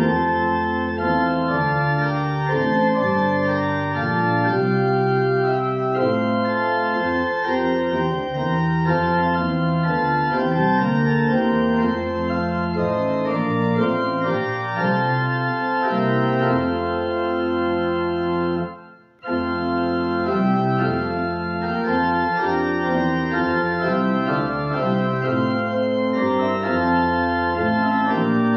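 Organ music playing slow, held chords, cutting out for a moment about two-thirds of the way through.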